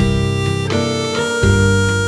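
Background music: sustained melody notes over a bass line, changing chord every half second or so.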